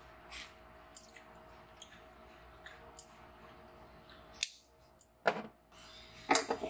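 Scattered small clicks and taps over a faint steady hum, with a sharper knock about five seconds in and a quick run of clicks near the end.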